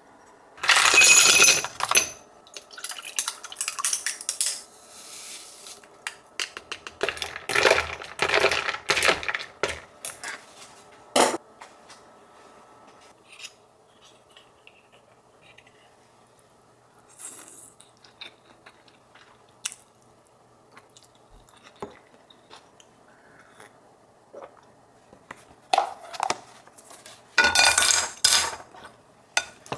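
Dishes and cutlery clattering and clinking in several bursts, with a sharp knock about eleven seconds in. A quieter stretch of scattered light clicks follows, and a last loud clatter comes near the end.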